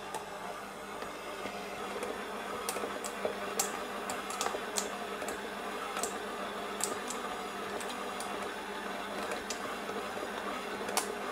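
Electric stand mixer running, its flat beater kneading a stiff ground-meat mix in a steel bowl: a steady motor hum with irregular sharp clicks.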